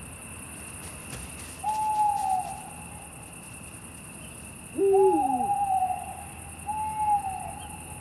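Eurasian eagle owl calling: three drawn-out, slightly falling calls, and about five seconds in a short, deeper hoot that drops in pitch.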